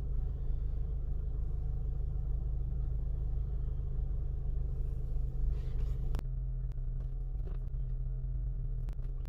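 Four-cylinder engine of a 2009 Chevy Cobalt idling steadily, running smoothly with no misfire after its coil packs were refitted. A few light clicks in the second half, and the idle note shifts slightly about six seconds in.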